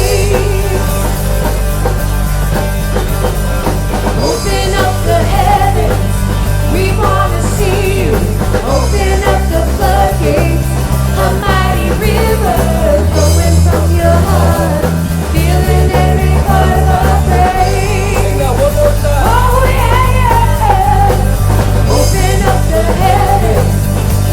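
A band playing a rock-style song with a lead voice singing over it: electric bass holding long notes that change every few seconds, drums with cymbals, and guitar.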